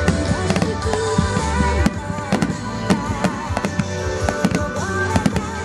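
Aerial fireworks bursting: a fast, irregular run of bangs and crackles, with music playing throughout.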